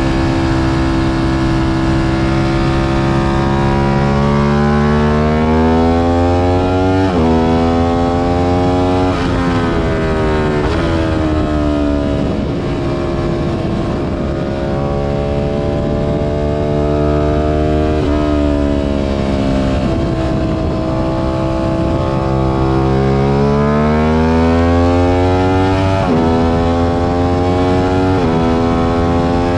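Aprilia RS 660's parallel-twin engine at full effort on a racetrack: its pitch climbs and drops sharply at each upshift twice, falls away under braking and downshifts, then climbs again through two more upshifts near the end.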